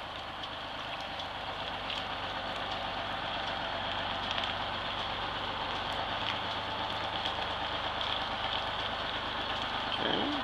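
GMC New Look transit bus's diesel engine running steadily at low speed, growing gradually louder over the first few seconds.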